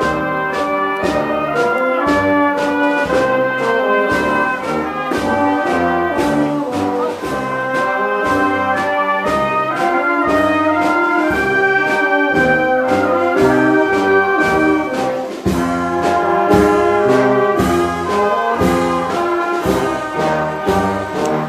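Brass band playing a processional march, horns carrying the melody over a regular drum beat.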